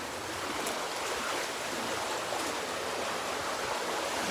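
Steady rush of flowing water, an even noise with no distinct events.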